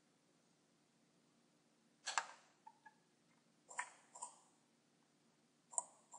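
Faint computer mouse clicks: a single click about two seconds in, then two pairs of quick clicks near four and six seconds in.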